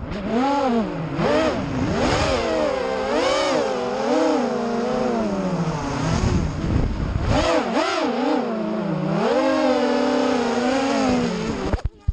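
FPV quadcopter's brushless motors and propellers whining, the pitch rising and falling over and over as the throttle changes. The sound cuts off near the end.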